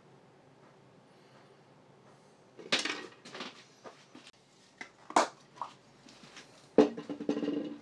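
A run of clinks and knocks starting a few seconds in, as a thin wire tool and small objects are handled and set down on a hard workshop surface. The loudest are two sharp knocks, the last followed by a brief metallic ring.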